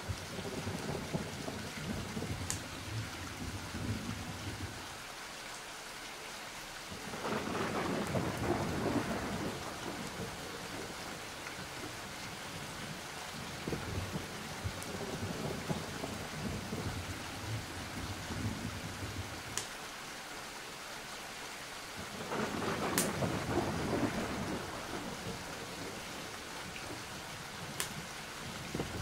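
Rain falling steadily, with low thunder rumbling underneath. Two longer rolls of thunder swell up and fade, one about a quarter of the way in and one about three quarters of the way through, and a few sharp ticks break through now and then.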